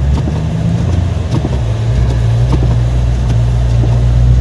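A steady, loud low rumbling drone, like a vehicle engine running.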